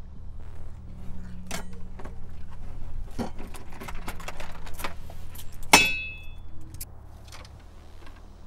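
A bunch of keys jangling and clinking with scattered metallic clicks, typical of keys being hooked and drawn out through a letterbox, with one loud ringing metallic clink about six seconds in. A low steady hum runs underneath.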